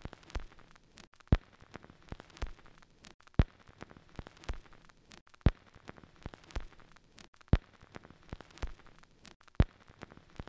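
Stylus riding the locked run-out groove of a spinning 7-inch picture-disc vinyl record after the song has ended: a sharp thump about every two seconds, with a softer click roughly halfway between, over faint surface crackle and hiss.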